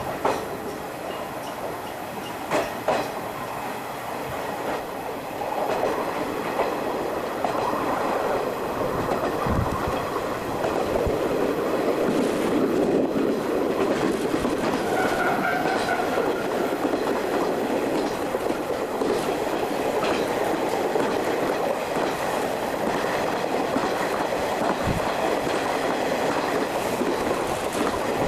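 Train running on jointed rail, wheels clacking over the rail joints with a steady rumble that grows louder about five seconds in as it gathers speed. A few sharp clicks come near the start.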